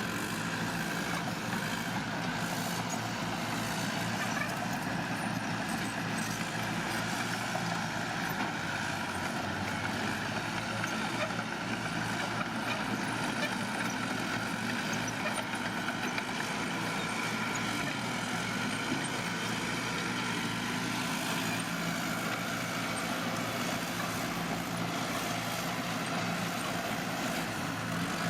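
Diesel engine of heavy earthmoving machinery running steadily, with an even drone and no breaks.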